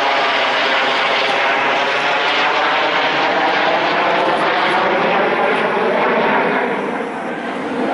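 Military aircraft flying low past on its landing approach: loud, steady engine noise whose tones slide down in pitch as it passes, easing off near the end.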